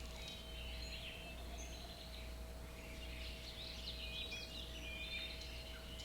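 Several small birds chirping and singing in quick short calls, busier in the second half, over a faint steady hum.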